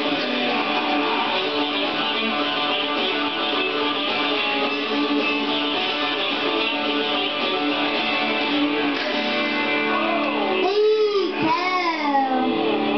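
Backing music with strummed guitar, an instrumental stretch without singing. Sliding, bending notes come in near the end.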